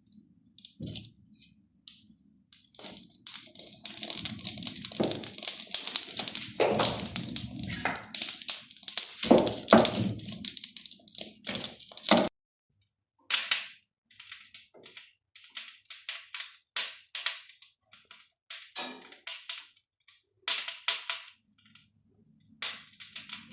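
Wood fire in a fireplace crackling and popping in irregular clusters, thick and busy for several seconds, then in sparser pops.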